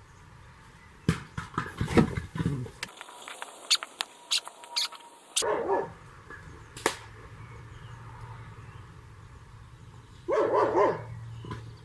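A dog barking twice, short wavering calls, the second near the end, with a run of sharp knocks and clicks in the first few seconds.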